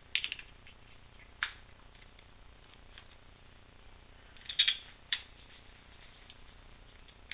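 Small metal tools and a revolver frame being handled on a padded mat while the grips are refitted: a short run of sharp clicks at the start, a single click about a second and a half in, and the loudest clatter about four and a half seconds in, with one more click just after.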